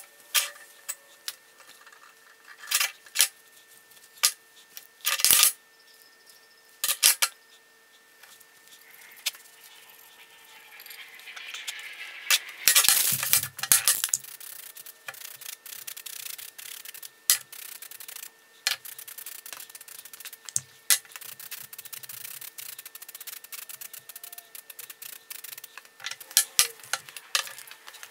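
Small clicks and taps of metal and plastic parts being handled on a steel workbench, then an aerosol spray paint can rattling and spraying in bursts, with a steady hiss under many small clicks.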